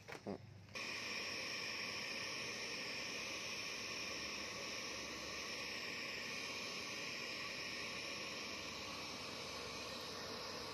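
A steady, unchanging whirring hiss that starts abruptly under a second in and holds level throughout.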